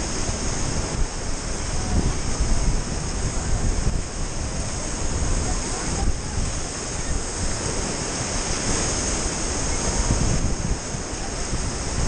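Whitewater rapids rushing around an inflatable raft as it runs a rapid: a loud, steady rush of churning water, with wind buffeting the microphone.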